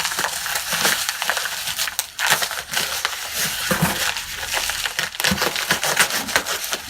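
A small package's wrapping being handled and torn at by hand: a dense, continuous crinkling rustle with many sharp crackles.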